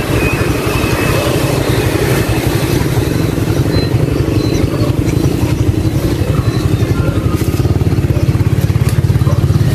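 Motorbike engine running close by at low, steady throttle, a fast even pulsing that grows a little louder in the last few seconds.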